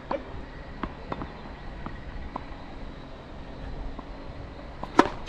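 Wind rumbling on the microphone, with a few light taps, then one sharp crack of a tennis racket striking the ball about five seconds in.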